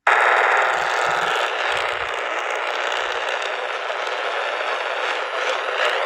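Radio static: a steady crackling hiss from a radio receiver, cutting in abruptly.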